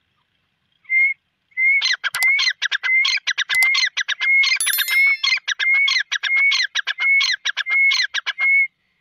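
Grey francolin calling loudly: a single note, then a fast run of repeated phrases, one about every 0.6 seconds, for about seven seconds.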